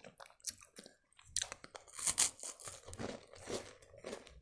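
Close-miked biting into a crisp round biscuit, then crunching and chewing it: a run of sharp crunches, loudest about two seconds in.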